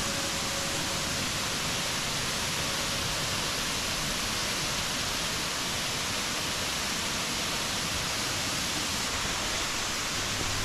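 Waterfall rushing: a steady, even hiss of falling water with no change throughout.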